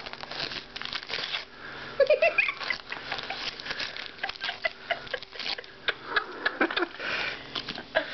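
A dog tearing and chewing wrapping paper off a gift, the paper crackling and rustling in quick irregular bursts, with sniffing. A short pitched sound about two seconds in.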